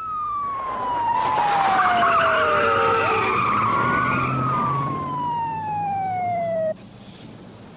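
Police car siren wailing in slow falling and rising sweeps over car engine and road noise. It cuts off suddenly near the end.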